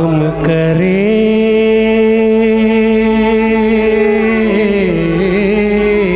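Man singing into a microphone: a long held note, then a lower, wavering, ornamented phrase near the end.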